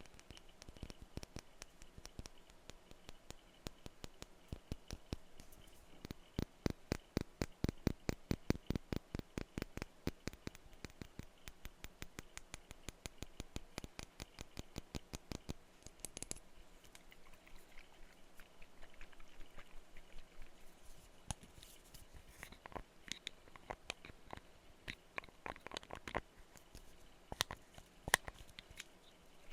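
Tapping on glass perfume bottles: quick, even runs of light taps several a second, loudest in the first half, then slower, scattered taps with a brighter clink.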